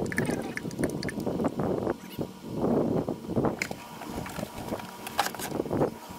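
Motor oil glugging out of a plastic quart bottle into a funnel while refilling an engine after an oil change, followed by a few sharp clicks of the plastic bottle being handled.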